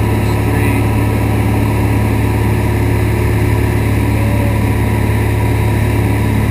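Light aircraft's engine and propeller running steadily at cruise, a constant low hum, heard from inside the cabin.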